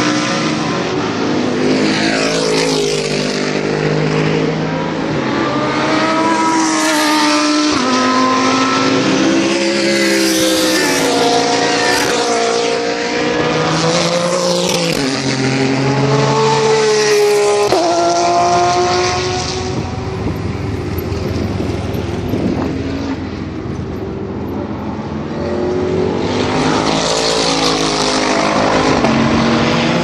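Several GT3 race cars passing in turn at full speed. Their engines climb in pitch through the gears and drop back at each gear change, and the sound swells as each car approaches and fades as it goes. It eases off about two-thirds of the way through before another car comes up.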